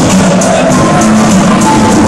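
Loud music with a steady beat filling a basketball arena, heard from the packed stands.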